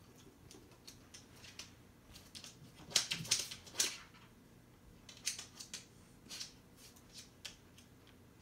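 Basenji rummaging through a plastic tub of stuffed toys: irregular light clicks and rustles, with a louder burst of rustling about three seconds in.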